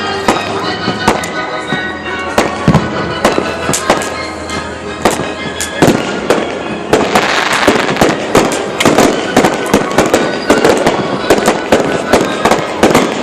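Fireworks going off in a rapid string of bangs over music playing. From about seven seconds in, the bangs come thicker and a dense crackling sets in.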